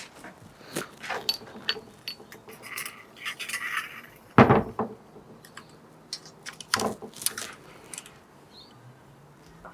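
Metal parts clinking and knocking while a new front fork spring is handled and fitted into a Honda CT110 fork leg, with two louder knocks about four and a half and seven seconds in.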